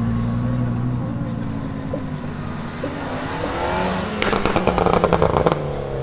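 Audi R8's V10 idling steadily at first. About four seconds in, a lowered C4-generation Audi saloon revs, and its exhaust fires a rapid string of loud pops and bangs for just over a second.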